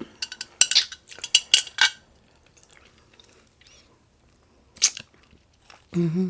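Close-miked eating at a breakfast plate: a quick run of sharp clicks and crunches in the first two seconds, then one more click near five seconds in. A short hummed vocal sound comes just before the end.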